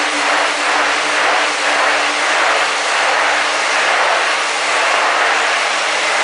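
Motor-driven rotating test rig spinning, a loud steady whirring hiss with a faint even hum underneath.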